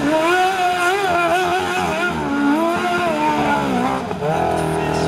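Racing ride-on lawnmower engine revving hard, its pitch rising and falling as the throttle is worked through the corners. About four seconds in, the pitch dips and a deeper engine note comes in.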